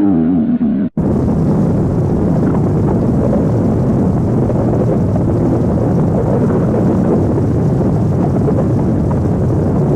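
Stomach growling: a wavering, pitched growl breaks off abruptly about a second in, then gives way to a loud, steady low rumble.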